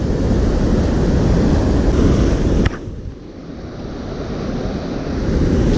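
Wind buffeting the microphone over the rush of stream water. About halfway through there is a click and the noise drops suddenly, then slowly builds again.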